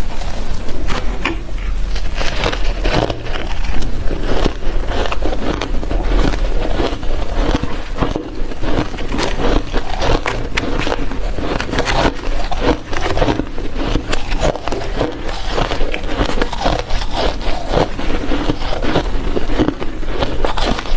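Soft ice being chewed close to the microphone: continuous wet crunching and crackling, with many small cracks packed close together.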